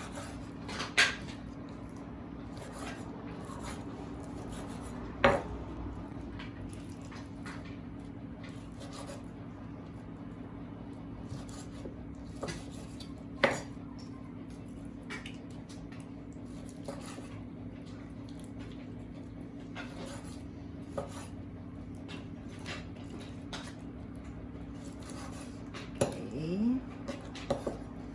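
Kitchen knife cutting raw chicken thigh on a cutting board: soft, irregular knife taps and scrapes, with a few sharp clinks of utensils, over a steady low hum.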